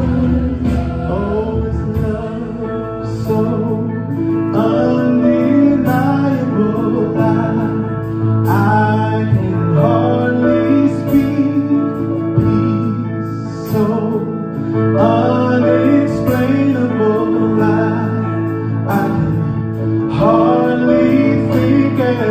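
Gospel worship song: a choir of men and women singing together over instrumental accompaniment with a steady beat.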